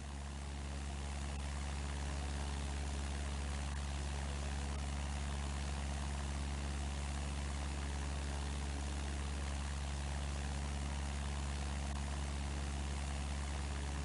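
A steady low engine drone with an even airy hiss over it, swelling up over the first couple of seconds and then holding level.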